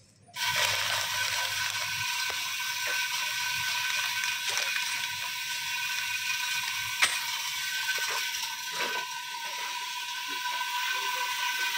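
Automatic nail and screw pouch packing machine running: a steady mechanical hum with a two-note whine and scattered light clicks, one sharper click about seven seconds in. It starts abruptly just after the beginning.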